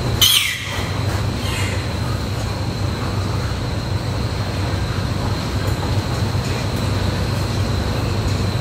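A piglet gives one short high squeal, falling in pitch, about a quarter of a second in. It sits over a steady low mechanical drone in the pig barn.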